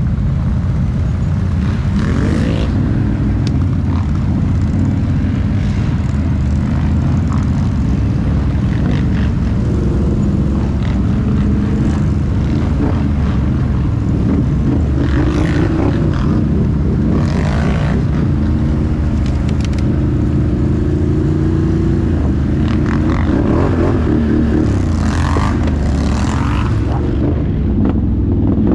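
Can-Am ATV V-twin engine running while riding, its note shifting up and down with the throttle, with a few short rushes of noise over it.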